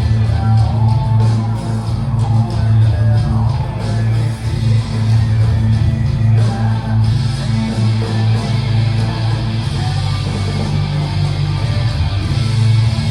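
Guitar-driven rock music with a strong, steady bass line and no singing, an instrumental passage.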